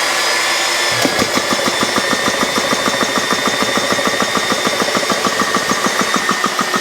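Yong Heng GX CS2 portable high-pressure air compressor starting up on 12 V power: a steady noise from the start, then about a second in the pump starts running with a fast, even beat of piston strokes.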